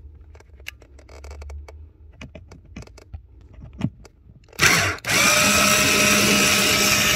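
Faint clicks and handling noises, then about five seconds in a handheld power drill starts and runs at a steady pitch with a constant whine, driving a T20 Torx screw on the under-dash panel.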